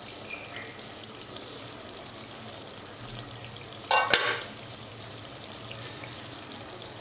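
Rooster curry sizzling steadily in a steel pot, with one short metallic clatter about four seconds in as the pot's lid is taken away.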